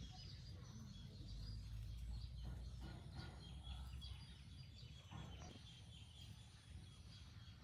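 Quiet outdoor ambience: birds chirping in short repeated calls over a low rumble that is strongest in the first half.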